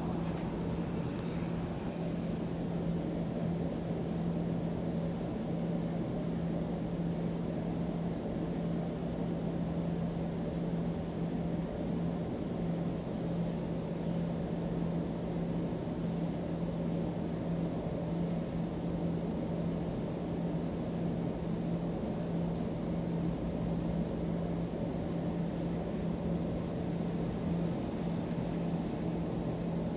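Steady cabin noise inside a Toronto streetcar, a Bombardier Flexity Outlook: an even low rumble with a constant low hum.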